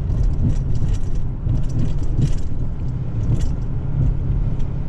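Car driving, heard from inside the cabin: a steady low road and engine rumble with a few short rattles scattered through it.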